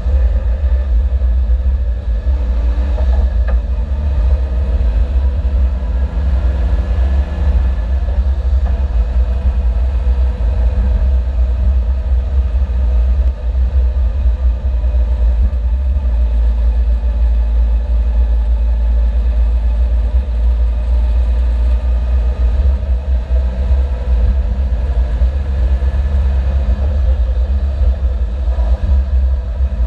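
Suzuki Jimny driving, its engine running under load over a heavy, steady low rumble, the engine note rising and falling with speed. The engine is a day away from blowing up, and the uploader notes that it has begun to misfire.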